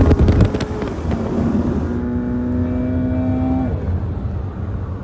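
Turbocharged Audi TT RS five-cylinder engine pulling hard in a highway roll race, heard from inside the cabin over road and wind noise. It is loudest for the first half second. Its note then climbs gently and falls away about three and a half seconds in.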